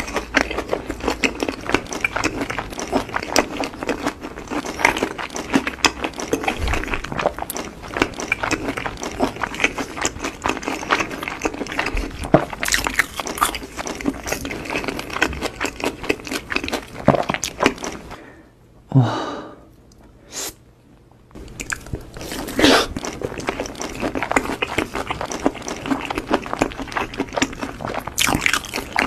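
Close-miked crunchy chewing of a red crumb-coated fried snack: dense, rapid crunches. About two-thirds of the way through there is a short pause with a brief pitched mouth sound, and then the crunching resumes.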